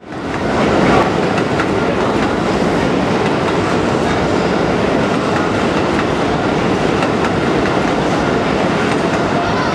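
Electric commuter train running along the track close by, a steady rumble with the wheels clicking over the rail joints. It fades in over the first second.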